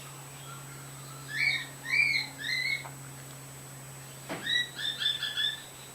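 Cockatiel whistling: three arched whistled notes about half a second apart, then a quick run of about five short notes near the end.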